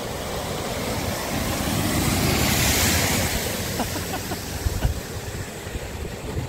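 A car driving fast through deep floodwater, its wheels throwing up heavy spray: a rushing wash of water that swells as it passes close about two to three seconds in, then fades as it drives away. Wind buffets the microphone.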